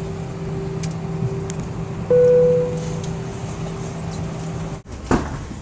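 Steady cabin hum of an Airbus A319 parked at the gate. About two seconds in a single electronic chime rings and fades within a second, the cabin chime heard as the seatbelt sign goes off on arrival. Near the end the hum cuts off suddenly.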